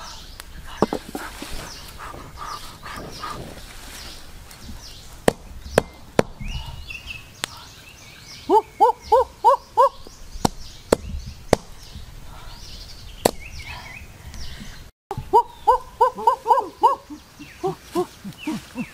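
Knife chopping, sharp single knocks at uneven intervals. Between them a bird gives quick runs of five or six hooting notes, twice, with faint chirping birds in the background.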